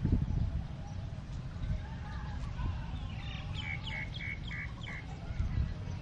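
A bird chirping five times in quick succession about halfway through, over a steady low rumble, with a thump at the very start.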